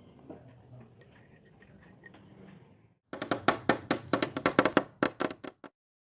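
Faint room noise, then about three seconds in a loud, rapid, irregular run of sharp strikes, roughly twenty in two and a half seconds, which stops abruptly.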